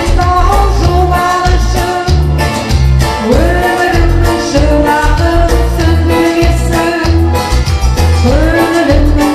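Amplified singing over a loud backing track with a heavy, regular bass beat, played through a PA system. The voice scoops up into a long held note twice.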